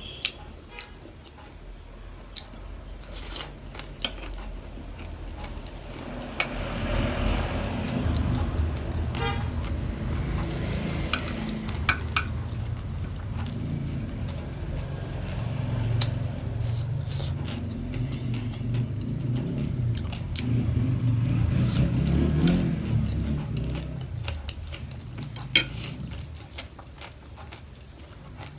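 Close-miked eating of pani puri: a long stretch of low chewing and munching, with scattered sharp clicks of a spoon against a dish.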